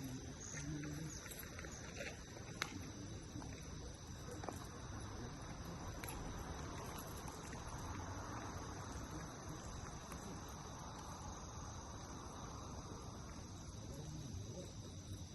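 Insects chirping in a steady, high, even chorus, with a few faint clicks scattered through it.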